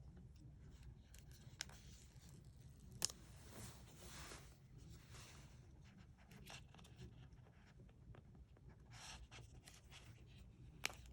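Faint handling of an AirPods Pro product box being unboxed: soft rustling and scraping of the packaging, with a few sharp clicks. The loudest click comes about three seconds in and another near the end.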